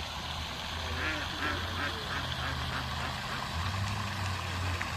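A duck quacking in a quick run of calls, about four a second, starting about a second in, over a steady low engine hum.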